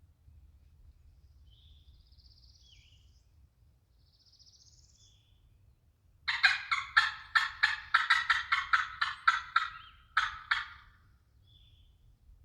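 A loud, fast run of turkey yelps, about four notes a second for nearly four seconds, then one short final burst. Faint songbird chirps come before it.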